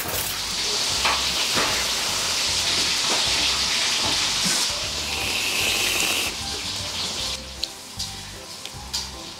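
Dried prawn crackers frying in hot oil. A loud sizzle for about six seconds then dies down to a quieter hiss with scattered pops.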